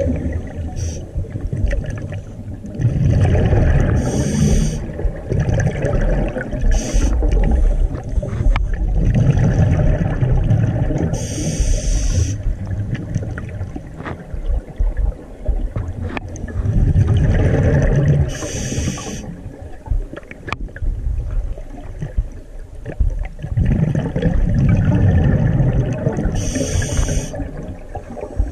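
Scuba diver breathing through a regulator underwater: four breaths, each a rumbling gush of exhaled bubbles followed by a hiss of air drawn through the regulator.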